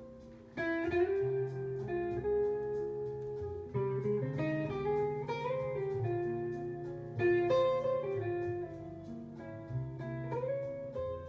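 Instrumental music played from a vinyl LP on a turntable: a lead melody with sliding, bending notes over a steady bass line. It is quiet for the first half second, then the phrase comes in louder.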